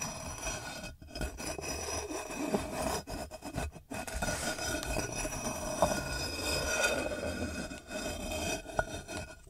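A metal camping cookpot scraping as it is slid across a wooden desktop. It moves in a few pushes, with brief pauses between them.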